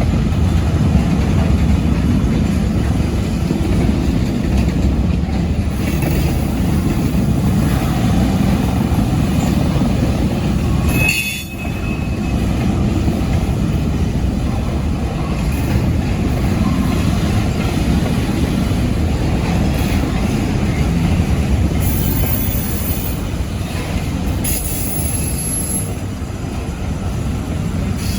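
ChME3 diesel-electric shunting locomotive running as it pushes a string of wagons back along a siding, a steady heavy rumble of engine and wheels on the rails. Short high-pitched wheel squeals come through in the second half.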